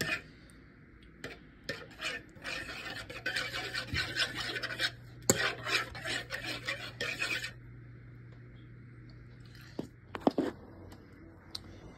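Spoon stirring thick gravy in a pot, scraping and clinking against the pot in a quick run of strokes for several seconds, with a few single clinks before and near the end.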